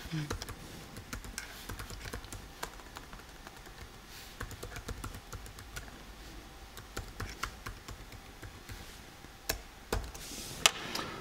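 Typing on a MacBook laptop keyboard: quick, irregular key clicks, with two louder clicks near the end.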